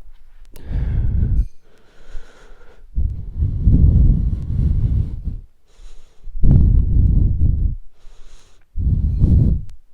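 Close breathing or blowing on the microphone, heard as four loud, low gusts of a second or two each with short gaps between.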